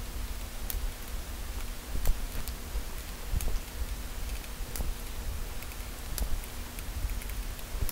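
Scattered light clicks and rustling from a small Phillips screwdriver backing screws out of a plastic laptop bottom case and from the loose screws being handled, over a low steady hum.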